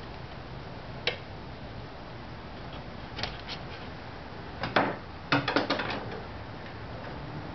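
Light clicks and knocks of hands handling a homemade boat dolly and its tie-down gear: a single click about a second in, a couple of soft knocks a little later, and a short clattering rattle about five seconds in.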